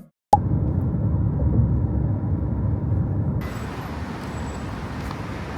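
Steady low rumble of vehicle or road traffic noise; a little over three seconds in, the sound widens with added hiss.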